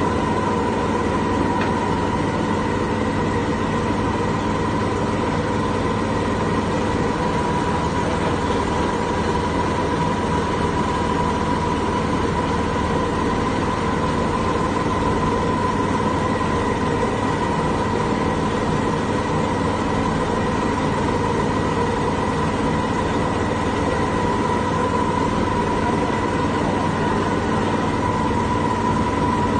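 Boat engine running at a steady speed, an even drone with a steady whine on top and no change in pitch or level.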